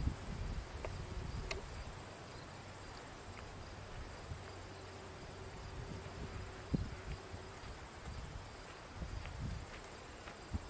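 Faint, steady high-pitched trilling of field insects, with a few soft footsteps on gravel near the end.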